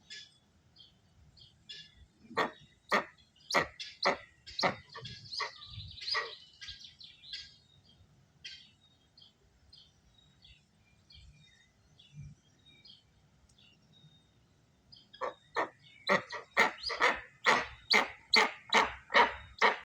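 A bird giving loud, sharp, repeated calls: an uneven run of about two a second, a stretch of faint scattered chirps, then a fast series of about three calls a second near the end.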